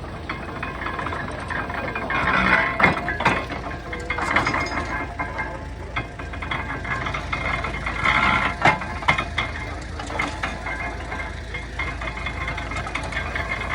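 1923 International Harvester stationary baler working straw, with irregular knocks, clacks and rattles from the machine over the steady low hum of the engine driving it.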